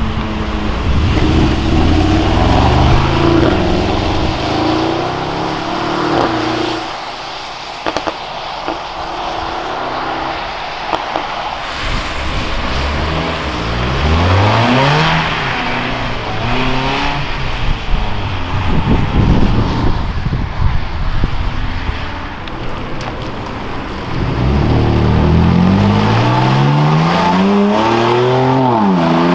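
Several performance cars accelerating hard away one after another on a wet road, each engine note climbing and dropping back as it shifts up through the gears, over a hiss of tyres on wet asphalt. Among them are a camouflaged Mercedes-AMG GLE prototype, a BMW E30 race car and, near the end, a BMW M4 with its twin-turbo straight-six revving up through the gears.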